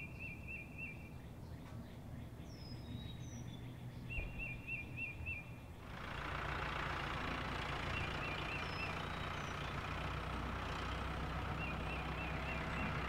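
Cartoon sound effect of a car driving through a forest: a steady engine and road noise comes in about six seconds in and runs on, over a background of birds chirping in short repeated trills.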